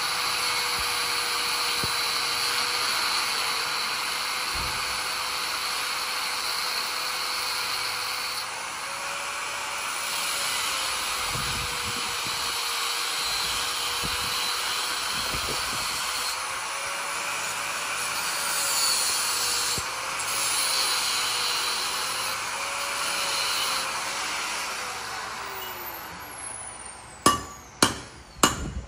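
Angle grinder running on metal, its motor pitch wavering as it bites, then switched off and winding down about 25 seconds in. A hammer then strikes metal several times, sharply, near the end.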